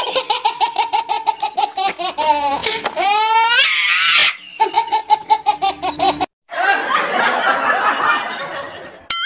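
High-pitched laughter in rapid ha-ha pulses, with a few rising squeals about three seconds in. After a brief break a second, busier laugh follows, and a wobbling boing sound effect starts just before the end.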